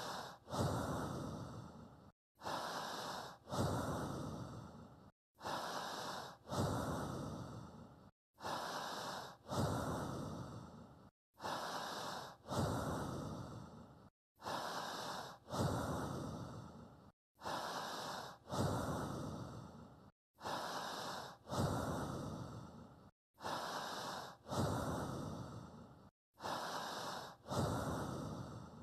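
Recorded human breathing repeating in a strict, even rhythm, one breath cycle about every three seconds, with a brief dead-silent gap between cycles. Each cycle is a short breath followed by a longer one that fades away. It is a looped breathing track that paces the listener's breathing.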